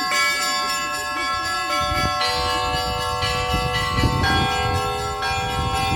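Church bells ringing in the Russian Orthodox manner: several bells of different pitches are struck in turn, about one new strike a second, and their long ringing tones overlap.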